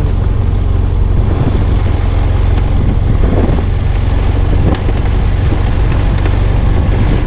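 Motorcycle on the move: its engine runs steadily under a heavy, even low rumble of road and wind noise.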